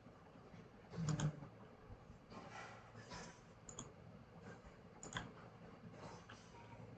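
Faint, scattered clicks of a computer mouse and keyboard, with the loudest cluster about a second in.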